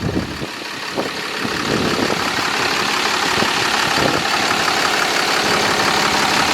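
2009 Dodge Ram 5500's diesel engine idling steadily, a steady running noise that grows louder over the first couple of seconds and then holds.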